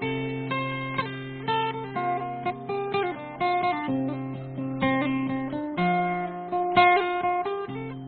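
Background music: acoustic guitar playing a steady picked and strummed melody.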